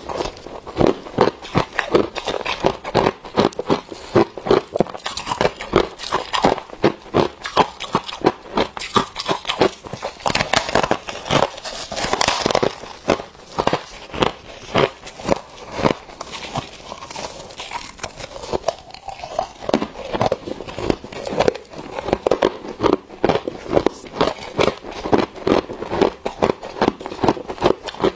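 Freezer frost being bitten and chewed close to the microphone: a dense, irregular run of crisp crunches throughout.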